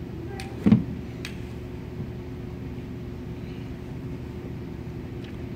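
Steady hum of a large fan or ventilation running, with a constant low tone, and one sharp thump less than a second in.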